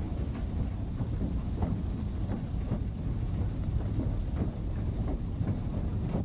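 East Broad Top #15, a narrow-gauge steam locomotive, and its train running, heard from just behind the tender. There is a steady low rumble with irregular knocks from the running gear and track.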